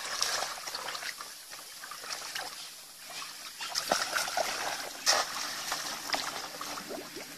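Shallow water in a flooded paddy field splashing and trickling as people wade through it, with a few sharper splashes about four and five seconds in.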